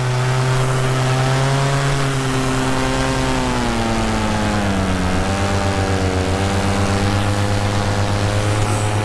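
Paramotor's two-stroke engine running in flight, loud and steady, its pitch sliding lower between about three and five seconds in and then holding at the lower speed.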